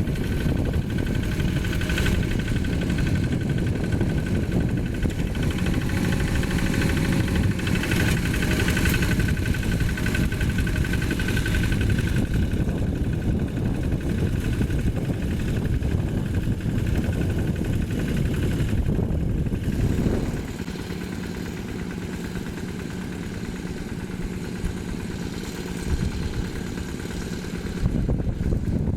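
Single-cylinder Yanmar diesel engine of a Quick G1000 hand tractor, running steadily while ploughing. About twenty seconds in the engine note drops to a quieter, steadier run, and it picks up again near the end.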